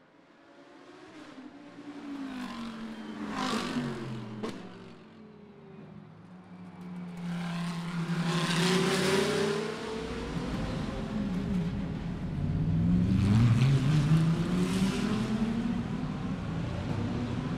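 GT3 race car engines at full racing speed, the Audi R8 LMS's V10 the most prominent, the pitch repeatedly dropping and then climbing again through the gears. The sound starts faint and grows louder, with the loudest runs past in the second half.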